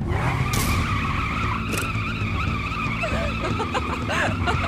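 Cartoon sound effect of a car's tyres screeching in a wheelspin as it launches hard: one long, steady squeal over the engine's low running.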